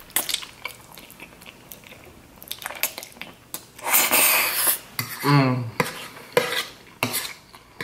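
Metal fork clinking and scraping against a plate of creamy fettuccine Alfredo. There is a loud slurp of noodles about four seconds in, followed by a short hummed "mm".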